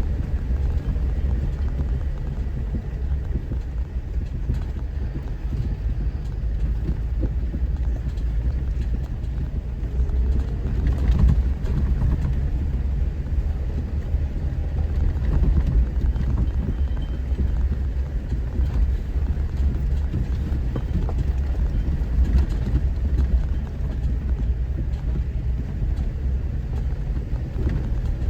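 Four-wheel-drive vehicle driving slowly over a rough dirt trail: a steady low engine and road rumble, with scattered knocks and rattles from the bumps.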